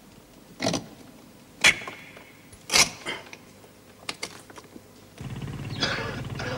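Three sharp knocks about a second apart, then a few lighter clicks; a low steady hum comes in about five seconds in.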